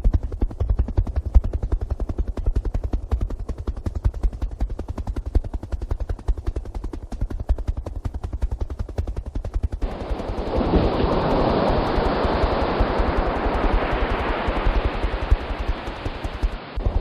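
Helicopter rotor chopping in rapid, even pulses. About ten seconds in, the sound switches abruptly to a loud, steady rush of wind noise.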